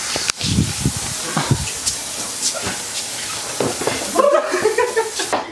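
Two men scuffling and wrestling: thumps and shuffling over a steady hiss, with a yell about four seconds in.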